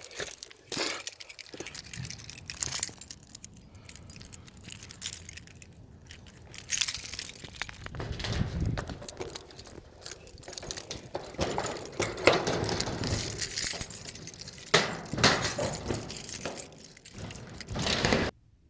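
Irregular clinks, rattles and rustles of objects being handled and moved about, stopping abruptly near the end.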